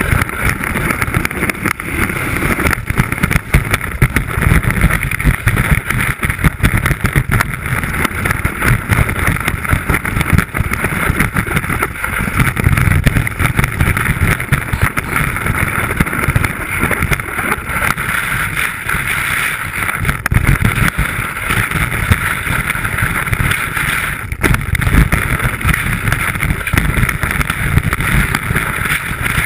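Wind and snow rushing over a ski-mounted GoPro while skiing through powder: a loud, uneven rumble with a steady hiss above it.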